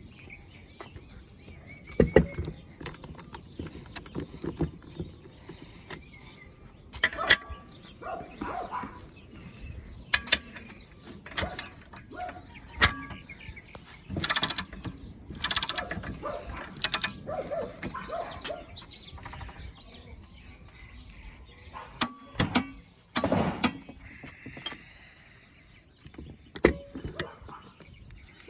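Intermittent knocks, clicks and a few short rattling bursts from tools and a bolt being handled and set up, with no sustained impact-wrench hammering.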